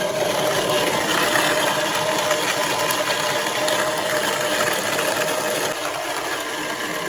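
Electric coffee grinder running steadily, grinding coffee beans, its small motor giving a loud whirring with a faint steady whine.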